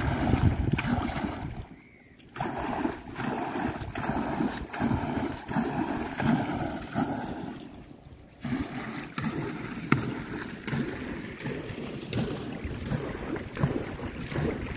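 Paddle strokes of a small hand-paddled boat: the paddle dipping and pulling through the water in a loose rhythm, with splashing and water washing along the hull. The sound drops away briefly about two seconds in and again around eight seconds.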